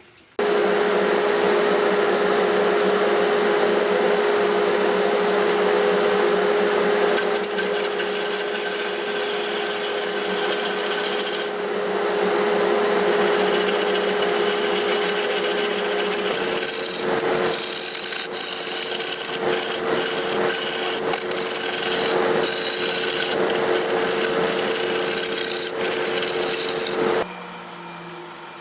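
Turning tool cutting into a hard Australian burl spinning on a wood lathe at about 600 rpm: a continuous rough scraping over a steady whine. It starts about half a second in, turns choppier in the second half, and stops abruptly near the end.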